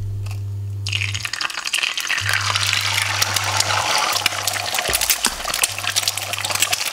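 Egg frying in hot oil in a nonstick pan. A crackling, spitting sizzle starts suddenly about a second in as the egg hits the oil and keeps going.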